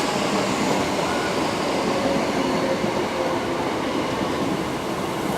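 A pair of Class 321 electric multiple units pulling into the station. The sound is a steady noise of wheels on rail, with faint thin tones from the brakes or wheels.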